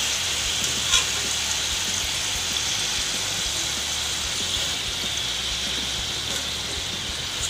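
Potato fries sizzling steadily in hot oil in a metal kadai during their second, crisping fry, with a wire skimmer moving through them. There is a single light tap about a second in.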